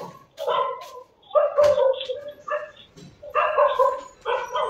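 A dog barking repeatedly, a string of short barks about one or two a second with brief pauses between them.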